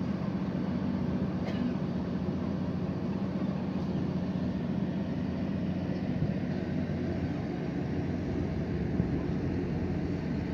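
Steady low drone of the MV Aemman's engine heard on deck while under way, a constant hum under a haze of wind and sea noise.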